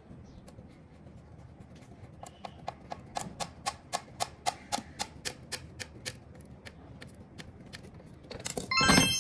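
A run of evenly spaced sharp clicks, about two to three a second, fading toward the end, then a loud ding that rings on with a clear tone.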